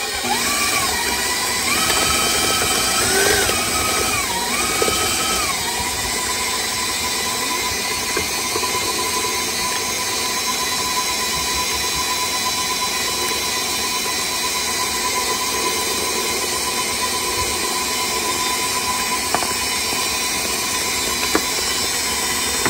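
KitchenAid stand mixer running with its flat beater creaming butter, sugar and eggs, its motor giving a steady whine. The whine steps up and down in pitch several times during the first six seconds, then holds at one pitch.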